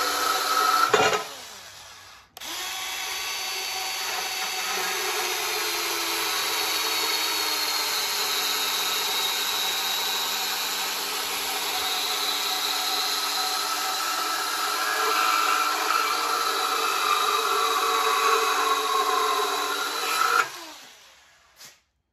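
DeWalt 20V cordless band saw cutting through a steel flat bar. A cut ends and the saw winds down about a second in; it starts again about two seconds in, cuts steadily, and stops near the end.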